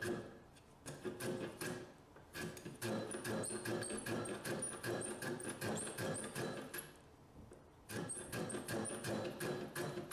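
A small block plane takes quick, short strokes across the end grain of a fir or larch through-tenon to chamfer its edges by hand. The rasping strokes come several times a second with high squeaky chirps among them, and there is a brief pause about seven seconds in.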